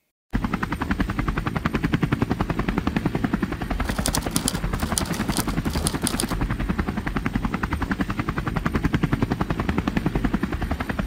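Helicopter rotor chopping in a rapid, even beat.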